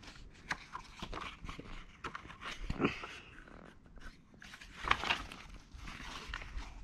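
A paper picture book being handled, its pages rustling and a page turning over near the end, with soft breathing sounds close to the microphone.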